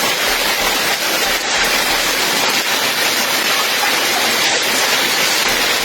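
Loud, steady roar of a violent storm: wind and heavy rain.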